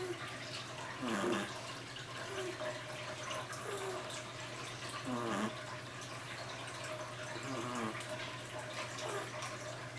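A Shih Tzu snoring in her sleep: rasping snores that glide down in pitch, loudest about a second in and again about five seconds in, with fainter short snorts between them.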